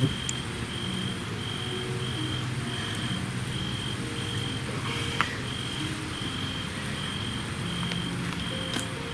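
A cricket chirping at an even pace, one short chirp about every two-thirds of a second, over a low hum, with a few faint clicks.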